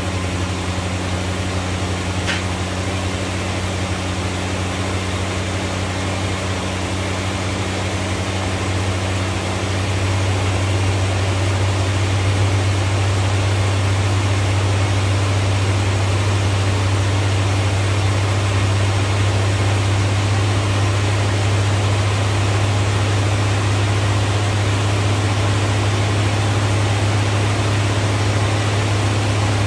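Plymouth Volare's carbureted engine idling steadily just after a cold start, warming on its electric choke; the running note gets slightly louder about ten seconds in.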